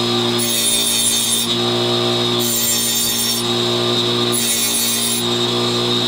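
DeWalt cordless angle grinder with a cut-off wheel running steadily, making three cuts through iron balusters, each a harsh hiss of about a second, coming roughly every two seconds.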